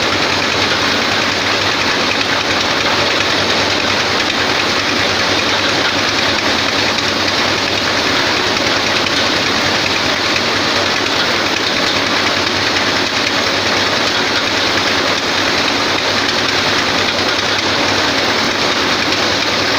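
Head-feed paddy thresher machine running steadily, a loud continuous mechanical rattle and whir with a low hum underneath.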